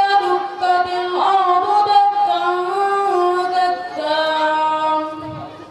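A boy's solo voice chanting melodically without accompaniment, in long held notes that glide between pitches, with short breaks for breath; the phrase ends about five seconds in.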